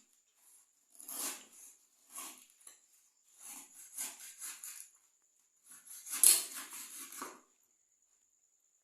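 Food-preparation handling sounds: a series of short rustles, scrapes and light knocks, with a run of quick ticks in the middle. The loudest and busiest stretch comes about six seconds in, and it stops about a second before the end.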